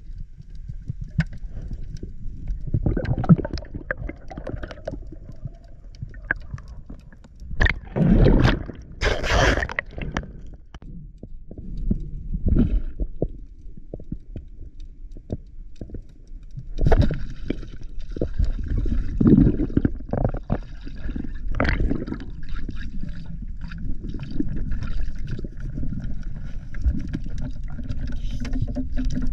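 Underwater sound of a diver swimming: water gurgling and rushing around the camera, with irregular knocks and louder bursts of bubbling, the strongest about a third of the way in.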